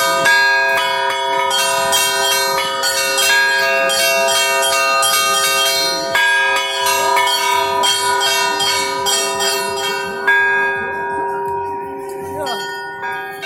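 A set of church bells rung by hand in a quick, rhythmic pattern of many strikes over a steady low bell tone. This is a festive peal, not the alarm toll. About ten seconds in the striking stops and the bells ring on, fading away.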